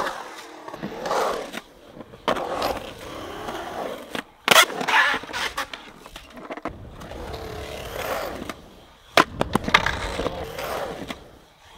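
Skateboard wheels rolling on a concrete bowl, the roll swelling and fading through the transitions. A hard crash a little under halfway through marks a slam: the board rolls away riderless on the concrete. Several sharp clacks of the board follow near the end.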